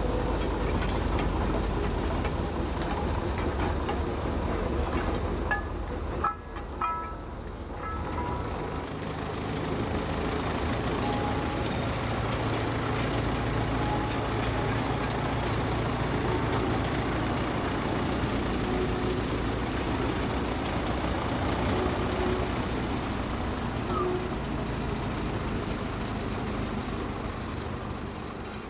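Shunting locomotives running steadily as they haul a brake van and short goods wagons past: a constant low engine rumble with wheels rolling on the rails, and a few sharp metallic clanks about six seconds in.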